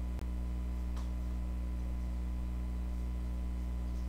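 Steady low electrical hum with its overtones, broken by a brief dropout near the start and a faint click about a second in.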